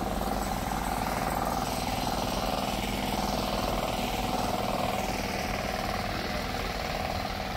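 Steady background of road traffic and running vehicle engines, with a constant drone under it.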